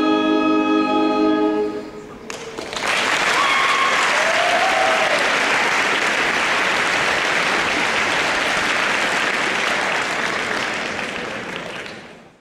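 A school wind band holds its final chord, which cuts off about two seconds in. A large audience then applauds, and the clapping fades near the end.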